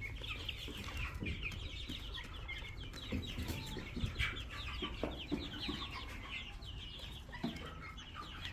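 A flock of young chickens peeping and clucking: a dense, continuous stream of short, high, downward-sliding chirps, with a few soft knocks near the middle.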